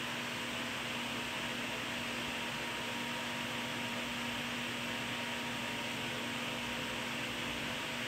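Steady hiss with a faint constant hum underneath: background room noise of the kind a running fan or air conditioner makes.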